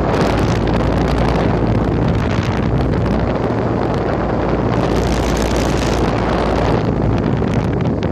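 Air-conditioner condenser unit running, its fan's air blowing across the microphone as a steady rushing noise over a low hum.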